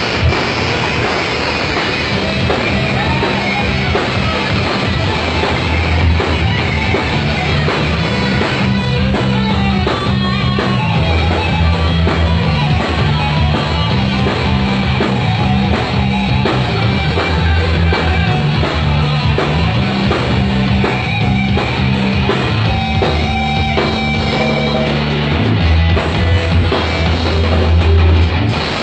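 Heavy metal band playing live: distorted electric guitars, bass guitar and drum kit, loud and dense, with the low notes stepping through a riff.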